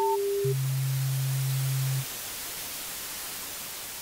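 Synthesized intro sound effect: a last short electronic beep, then a low steady tone for about a second and a half, over a hiss of static that slowly fades.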